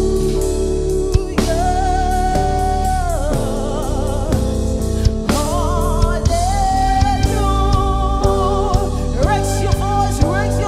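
Gospel worship song: a singer holding long, wavering notes over a band with keyboard and drum kit.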